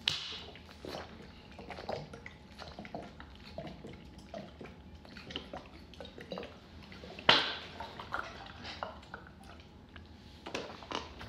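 Water glugging and being gulped down from an upturned plastic water bottle, in small irregular pulses as air bubbles up into the bottle. Two sharper, louder sounds stand out, one right at the start and one about seven seconds in.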